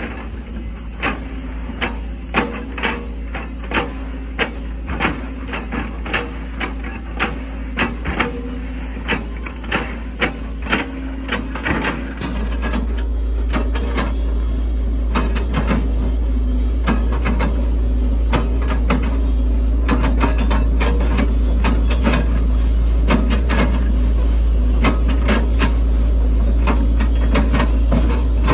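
Hitachi ZX110 excavator working: its engine runs steadily under a string of sharp knocks and cracks as the bucket chops into oil palm trunks. Partway through, the engine grows louder and steadier, pulling under heavier load.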